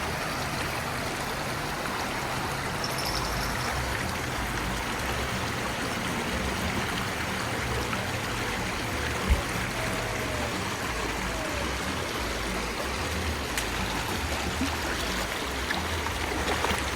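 Mountain river flowing: a steady rush of water with a low rumble underneath, and one short knock about nine seconds in.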